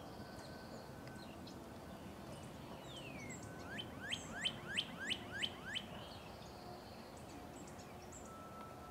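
A songbird sings a fast run of about seven sharp rising notes, about four a second, roughly four seconds in, just after a single falling note. Other birds chirp faintly around it over a steady low hiss of the woods.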